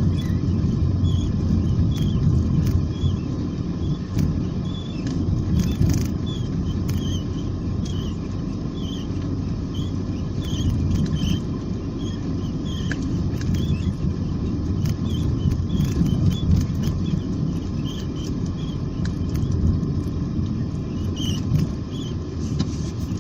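A short high-pitched squeak repeating about twice a second over a steady low rumble, like a creak from a moving vehicle.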